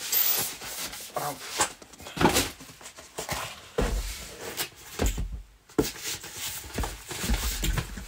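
Handling noise of cardboard boxes and packaging being picked up and moved: irregular rubbing, rustling and light knocks, with a few dull thumps.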